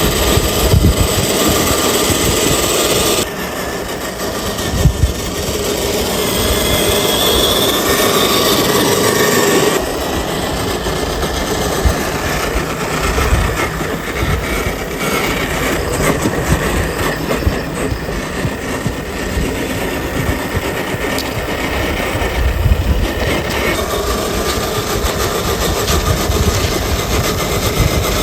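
Radio-controlled scale Toyota Land Cruiser FJ40 crawler driving off-road, its electric motor and gears running with a thin whine over low rumbling. The sound changes abruptly about three seconds in and again near ten seconds.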